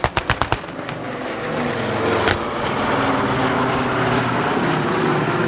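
Boeing B-29 Superfortress flying overhead, its four Wright R-3350 radial piston engines giving a steady droning run. A quick run of sharp clicks comes in the first half second, and one more click about two seconds in.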